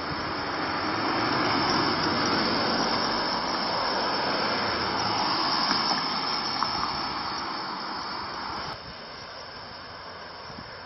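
Cars driving past on a rain-wet road, their tyres hissing on the wet asphalt, the hiss swelling as they come close and easing as they go. Near the end it drops suddenly to a quieter, steady hiss.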